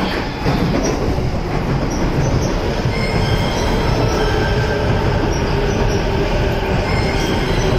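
Chuo Line electric commuter train pulling into the platform, its wheels rumbling steadily over the rails. Thin high-pitched squeals from the wheels join in about three seconds in and continue as the cars pass.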